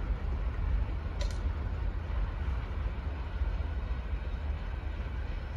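CSX freight train cars rolling away along the track, a steady low rumble of wheels on rail, with one short click about a second in.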